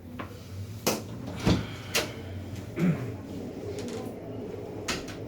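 About five scattered knocks and clunks, like furniture and objects being moved and handled, over a steady low hum.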